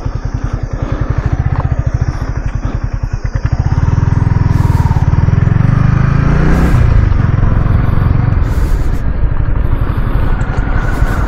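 Yamaha R15's single-cylinder engine idling with even firing pulses, then pulling away about three and a half seconds in. The revs rise and drop again around six to seven seconds, and it runs on steadily at low speed.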